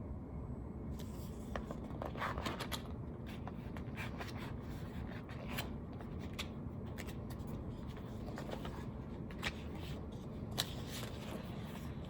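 Paper pages of a picture book being handled and turned: faint, scattered rustles and small clicks over a steady low hum.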